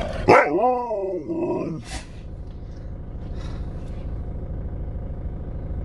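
Alaskan malamute giving a drawn-out, wavering 'talking' vocalisation for about a second and a half, its pitch rising and falling, then a brief noisy burst. A low steady rumble runs underneath.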